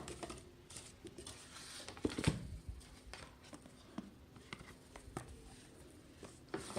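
Unboxing handling noise: scattered light clicks, taps and rustles as an earphone carry case and its packaging are handled, with the sharpest knocks about two seconds in.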